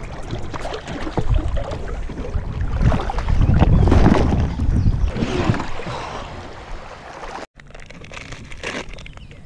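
Water rushing and splashing against a kayak hull as it runs through shallow fast water, loudest about four seconds in. After an abrupt cut at about seven and a half seconds it turns quieter, with light crinkling of a snack-bar wrapper being handled.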